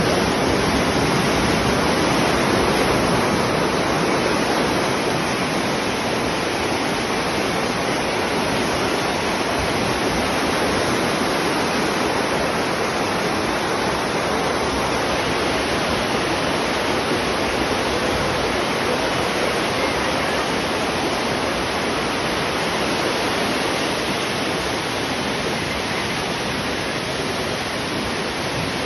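Floodwater rushing, a steady loud roar of fast-flowing water.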